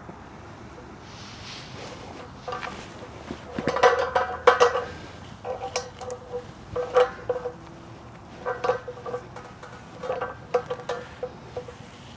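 Irregular light metallic clinks, each with a short ringing tone, from a Honda CBR650R's front wheel being turned and checked on a balancing stand with its wheel weights still on.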